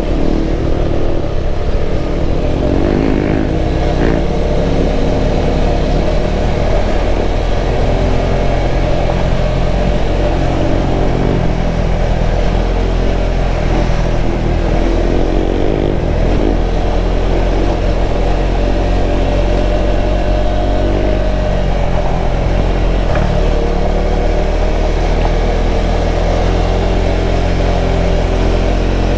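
KTM 390 Adventure's single-cylinder engine running under way on a gravel road, its pitch rising and falling through the first half as the throttle changes, then holding steady, over a steady rush of road and wind noise.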